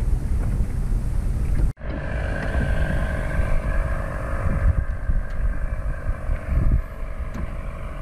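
Wind rumbling on the microphone of a camera on a small sailboat, broken by an abrupt cut about two seconds in. After the cut a steady boat-motor drone joins the wind rumble.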